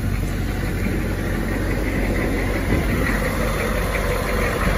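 Military truck's diesel engine idling steadily.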